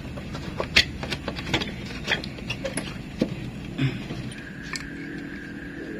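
Scattered sharp clicks and light knocks of hard plastic as hands fit an LED projector headlight bulb into a car's headlight housing. A faint steady hum comes in about four and a half seconds in.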